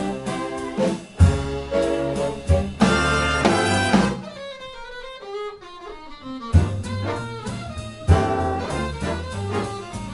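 Big band playing swing jazz, with horns over bass and drums and punchy ensemble accents. About four seconds in, the bass and drums drop out for roughly two seconds, leaving the horns with falling lines. The full band comes back in with a loud hit.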